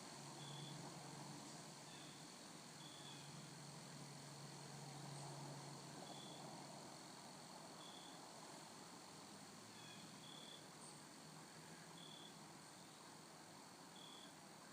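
Faint woodland insect sounds: short high chirps every second or two over a steady, faint high drone.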